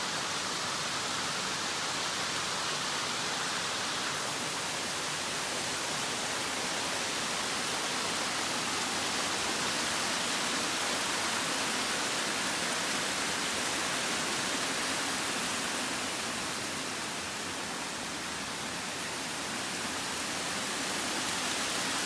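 Small waterfall falling down a rock face into a rocky stream: a steady rush of water, dipping slightly in loudness about three-quarters of the way through.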